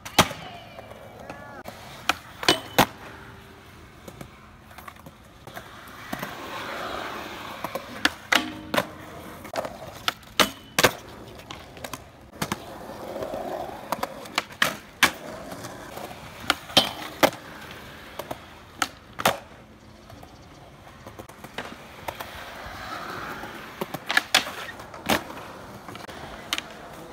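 Skateboard on concrete: urethane wheels rolling with a rough hiss, broken many times by sharp cracks of the tail popping and the board landing, often two in quick succession. There are scrapes of the board grinding along a ledge.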